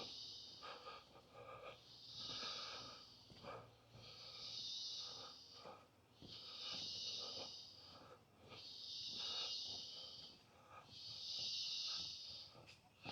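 A rainforest insect buzzing in a regular rhythm. Six hissing swells, each about a second and a half long, come roughly every two and a half seconds. Faint scattered crackles sound beneath.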